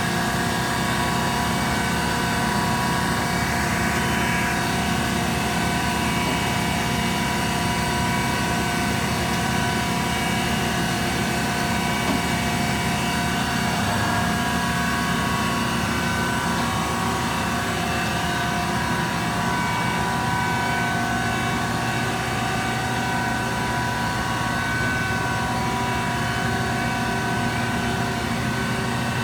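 Mazak VCN510C vertical machining center powered up and running, a steady machine hum with several steady tones throughout.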